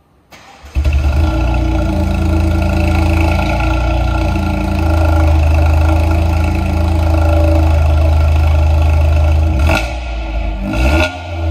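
Toyota GR Yaris's 1.6-litre turbocharged three-cylinder started through a Ragazzon sport exhaust with the particulate filter (OPF/GPF) removed: a brief crank, then it catches with a flare under a second in and settles into a loud, steady cold idle. Near the end the idle is broken by a couple of short throttle blips.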